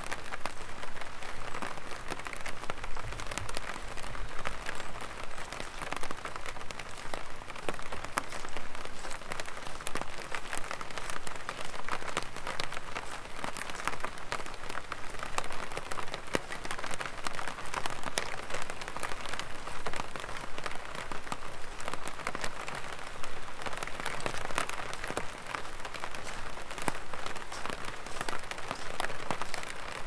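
Light rain pattering steadily on an umbrella overhead, a dense spatter of small drop ticks, with the walker's footsteps on a wet gravel path mixed in.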